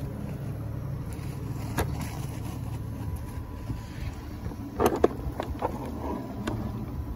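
Daikin mini-split outdoor unit running steadily in heating mode on its first start-up, a low hum. A few short handling knocks come about two seconds in and again around five seconds in, as the manifold gauge is picked up.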